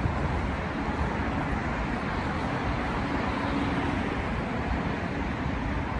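City street ambience: a steady wash of road traffic noise, with a faint steady engine hum passing through about halfway in.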